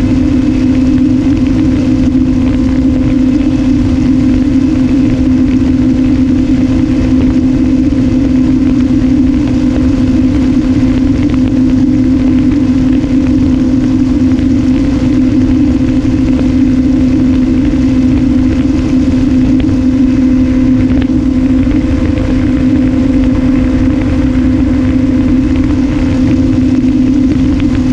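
Brushless electric motor and propeller of an RMRC Strix Strato-Surfer FPV flying wing buzzing at a steady pitch in cruising flight, heard from the onboard camera. Wind rumbles on the microphone underneath.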